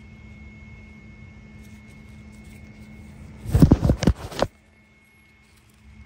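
A brief clatter of several sharp knocks, about a second long, over a steady low hum. After the clatter the sound drops much quieter.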